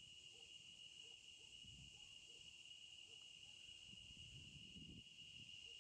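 Near silence: a faint, steady high-pitched insect buzz, with a faint low rumble underneath.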